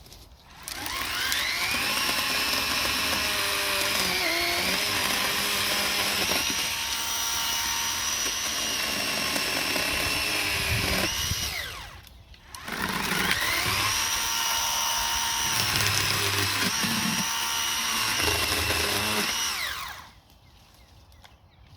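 Electric chainsaw cutting fallen pine trees, run twice: each time the motor spins up with a rising whine, runs for several seconds with its pitch dipping as the chain bites into the wood, then winds down. The first run lasts about eleven seconds, the second about seven.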